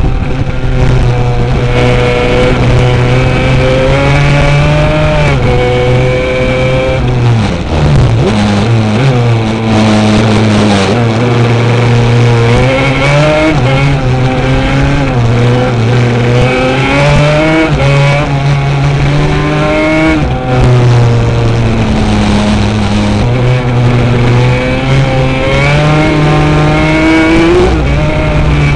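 Yamaha Banshee racing quad's two-stroke twin engine at racing speed, its pitch climbing under throttle and dropping back at each gear change or lift, again and again.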